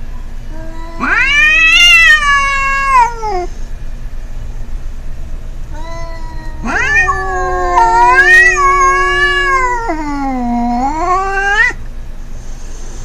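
A cat giving two long, drawn-out threat yowls. The first comes about a second in and lasts some two seconds; the second is longer and wavers up and down in pitch. It is a territorial caterwaul at an intruding stray cat.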